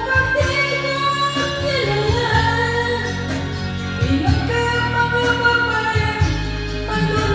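Music: a sung melody with long held, gliding notes over instrumental backing with a steady bass line.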